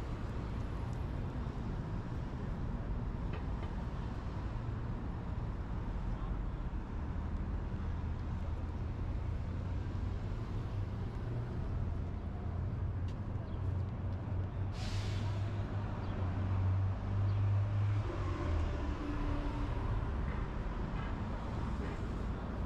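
City street traffic: a heavy vehicle's engine rumbling low, louder through the middle, with a brief hiss about two-thirds of the way in.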